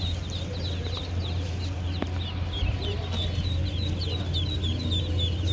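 Many ducklings peeping without a break, their short high calls overlapping, over a steady low hum.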